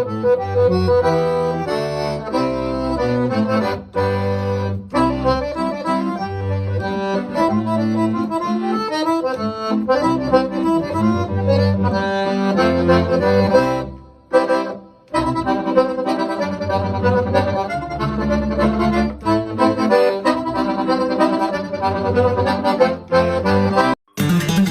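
Background music led by an accordion over a steady bass line, with two brief breaks about a third of the way through and a sudden switch to a different piece right at the end.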